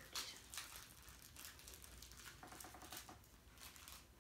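Faint scratching, pattering and scuffling of puppies' paws and bodies on the floor as they wrestle, a scatter of short soft clicks.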